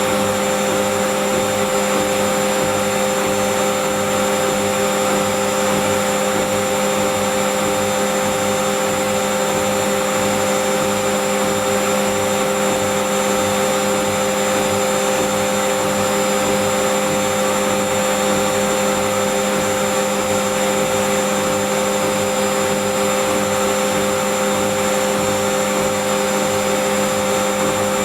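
Whirlpool Indiana 1400 front-loading washing machine in its fast spin, giving a steady whine of several tones over an even rushing hiss that holds constant throughout.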